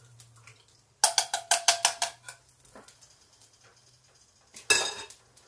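Wire whisk beating eggs in a stainless steel mixing bowl: a quick run of rapid metal clinks with a ringing tone, then a single louder metal clank near the end.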